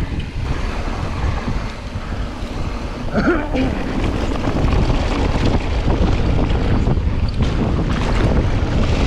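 Wind rushing over the microphone of a mountain bike speeding downhill, with the bike clattering and rattling over the rough dirt trail. A short pitched sound cuts through about three seconds in.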